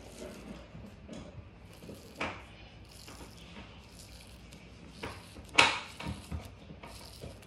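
Non-stretch porous cloth tape being pulled off the roll and wrapped around a foam backer-rod post, with soft rustling handling and a few short rasps of tape peeling off the roll, the loudest about five and a half seconds in.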